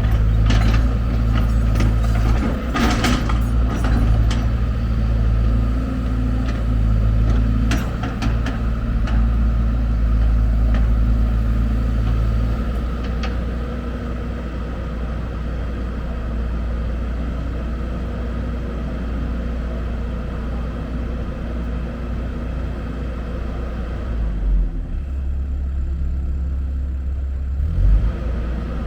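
Heavy diesel machinery running steadily, with sharp knocks and clatter through the first ten seconds or so, the engine note shifting a couple of times, and one louder thump near the end.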